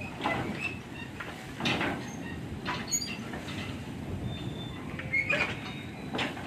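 Narrow-gauge railway wagons loaded with sugarcane rolling slowly past, with a low steady rumble of wheels on rail and irregular metallic clanks about once a second.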